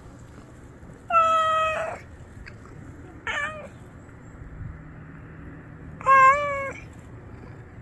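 Tortoiseshell stray cat meowing three times: a long, steady meow about a second in, a short meow that drops in pitch, and a louder one near the end.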